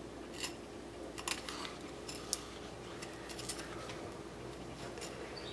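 A knife cutting along a trout's rib bones as the fillet is separated, giving a scatter of faint, crisp, irregular clicks.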